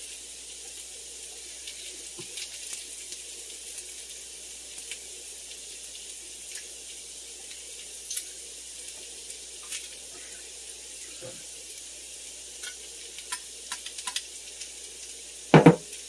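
Diced potatoes, carrots and celery sizzling in butter in a pot, a steady faint hiss with scattered crackles. A single loud knock sounds near the end.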